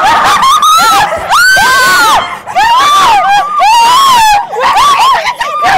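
Several women screaming in fright, a string of high-pitched overlapping screams with brief gaps, one held longer about a second and a half in.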